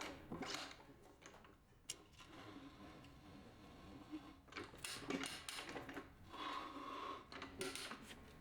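Faint, irregular scraping and rubbing as a motorcycle tire's bead is worked onto the rim with a Rabaconda manual tire changer's ratchet bar, with one sharp click about two seconds in.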